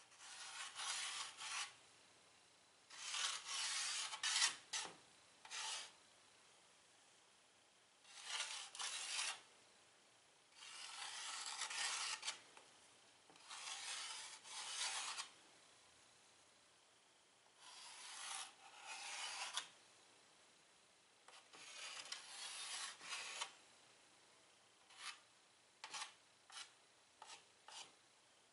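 White chalk scratching across a chalkboard in drawing strokes: scratchy bursts of a second or two with short pauses between, turning to quick short strokes near the end.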